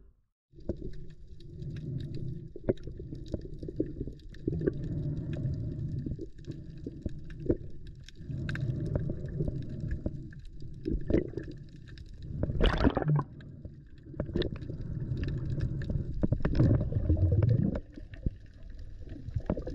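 Muffled underwater gurgling and bubbling, coming in surges a couple of seconds long with short gaps between, and one sharper, louder burst of bubbles about 13 seconds in.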